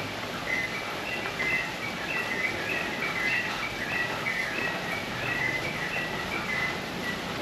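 A bird singing a long run of short, clear whistled notes, several a second, over a steady rushing background noise.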